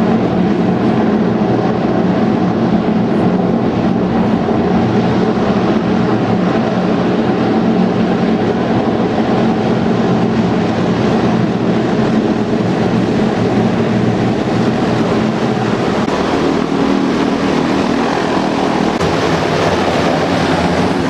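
SR.N4 passenger hovercraft approaching under power: its four gas-turbine-driven propellers and lift fans running loud and steady, the sound growing brighter and fuller near the end as the craft comes close.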